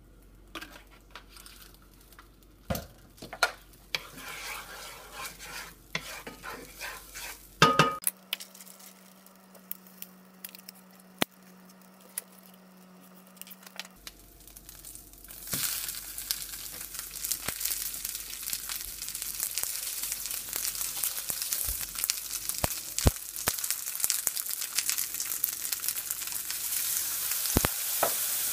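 Hot oil sizzling in a frying pan as a block of chow mein noodles is laid in, starting about halfway through and growing steadily louder toward the end. Before that, light clicks and crinkling from handling.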